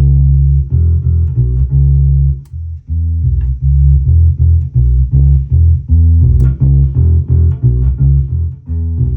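Electric bass played through a Gallien-Krueger Legacy 210 bass combo amp with its overdrive channel on: a riff of held notes broken by short gaps, with a brief pause a little past two seconds in.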